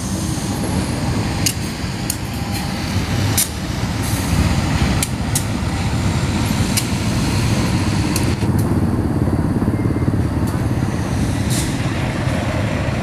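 GE CC 201 diesel-electric locomotive running with a steady heavy low rumble as it hauls a container freight train, with scattered sharp clicks over it.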